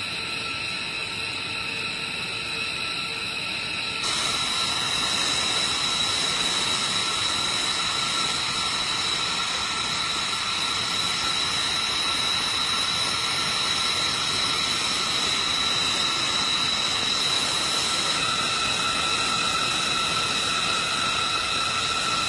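Steady jet engine rush with high-pitched turbine whine. The sound changes abruptly about four seconds in and again near the end.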